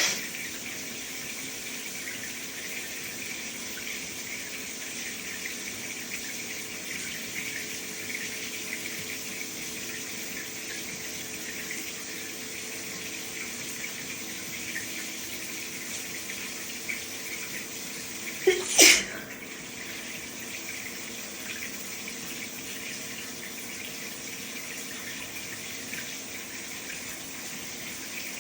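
Shower water running steadily, and about two-thirds of the way through a person sneezes once, loudly: a brief 'ah' then the sudden 'choo'. The sneezing is from allergies acting up.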